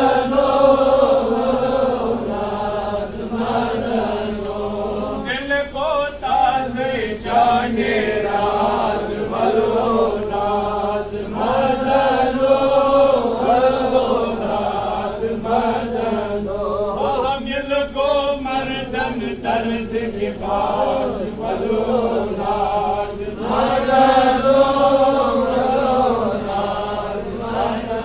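A man's voice chanting a Sufi devotional poem (kalam) in long melodic phrases that rise and fall, with short breaks for breath and no instruments.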